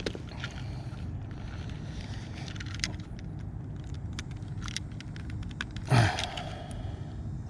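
Handling noises: scattered light clicks and a louder thump about six seconds in, over a steady low rumble.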